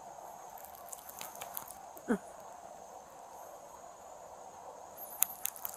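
Faint steady high-pitched chirring of night insects. A brief falling squeak cuts in about two seconds in, and a few sharp clicks come near the end.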